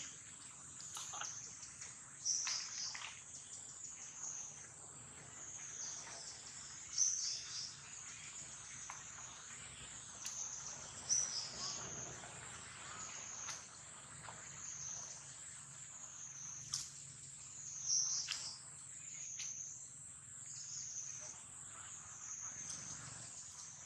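Steady high-pitched insect chorus, swelling and fading about every two seconds, with a few short, sharp high calls standing out above it.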